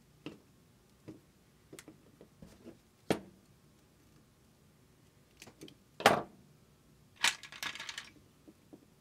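Hands working wires and a wire stripper on a wooden workbench: small clicks and taps, with a sharp knock about six seconds in as the stripper is set down on the bench, then a short rattle of plastic wire nuts being picked from their box.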